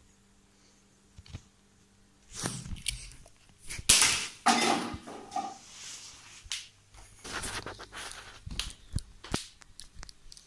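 A mobile phone being knocked and dropped on hard surfaces: a run of sharp knocks and clatters starting about two seconds in, the loudest about four seconds in.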